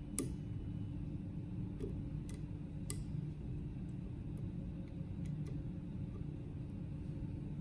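A few faint, scattered metallic ticks of a hex key seating in and turning socket-head cap screws as they are nipped up, over a steady low hum.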